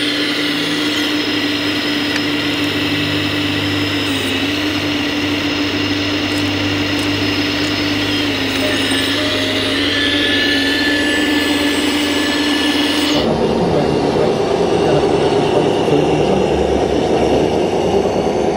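A 1:14-scale RC Volvo excavator's electric motors and hydraulics whine steadily as it works, the higher whine gliding up and down twice as the boom and bucket move. About thirteen seconds in the sound cuts abruptly to a lower, rougher mechanical rumble.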